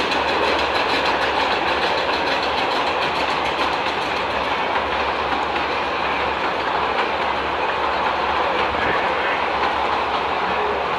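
Miniature steam train's passenger cars rolling past over a steel truss bridge, wheels clattering steadily on the rails.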